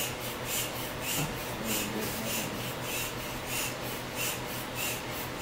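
Small hand air pump inflating an exercise ball through a hose, each stroke a short puff of air at a steady pace of about two a second.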